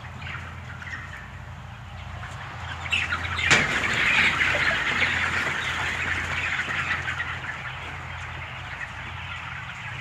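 A large flock of 27-day-old broiler chickens calling and flapping, a dense mass of sound that swells about three seconds in with a sharp knock, then dies down gradually. A steady low hum runs underneath.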